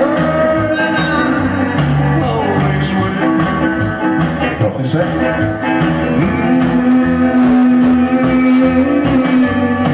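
Loud recorded music with guitar and singing, played over a DJ sound system, with a long held note in the second half.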